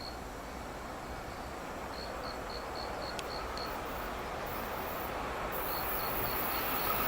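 JR East E721-series electric train approaching: a steady rumble growing louder, with a high hiss from the rails and a steady tone building from about halfway in. Insects chirp over it in short quick pulses, about four a second.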